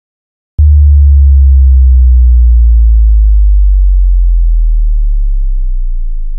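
Cinematic bass drop sound effect: a sharp attack about half a second in, then a very loud, deep sub-bass tone that slowly falls in pitch and fades away.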